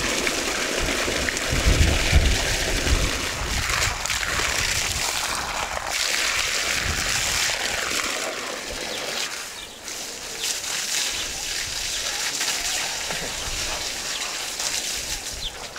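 Water from a garden hose splashing steadily into a metal pan of raw quail.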